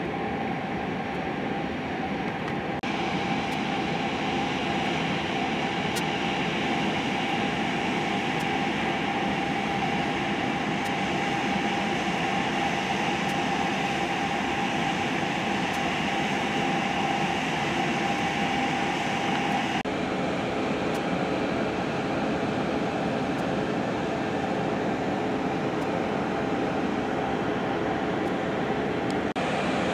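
Engine of a ship's tender boat running steadily under way: a continuous drone with a humming tone that shifts slightly about twenty seconds in.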